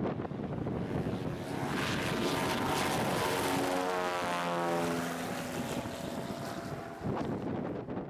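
Cessna 180 taking off, its six-cylinder Continental O-470 engine and seaplane propeller at takeoff power. It grows louder as the plane comes past, and the pitch drops as it goes by and fades away. The sound cuts off abruptly near the end, leaving wind on the microphone.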